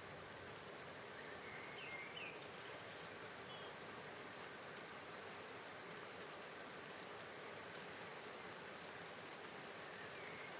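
Steady, faint rain falling as an even hiss. A few faint short high chirps come through about two seconds in and again near the end.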